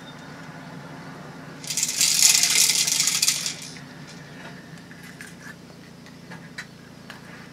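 Clear plastic crinkling as it is handled: one loud crackling burst of about two seconds, starting near two seconds in, followed by a few faint clicks.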